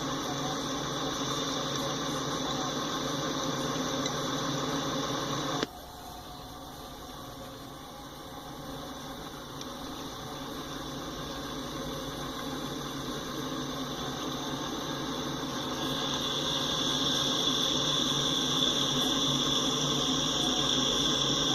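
Freight train passing with a steady rumble and rolling noise. It drops off suddenly about six seconds in, then builds gradually again and grows louder and brighter toward the end.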